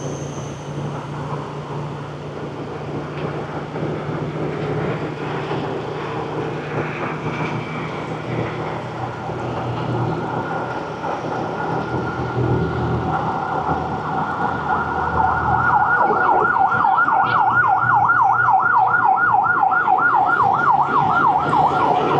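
Emergency vehicle siren over a steady hum of street traffic. It comes up about halfway through and grows louder, then switches to a fast warble of about three to four sweeps a second for the last several seconds.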